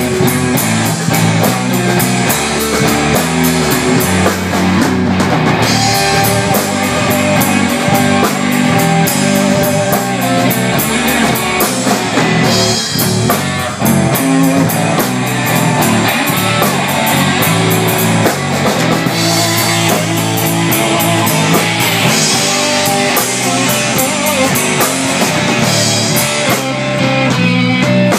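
Blues trio playing live without vocals: electric resonator guitar over a drum kit and electric bass, with a steady drumbeat.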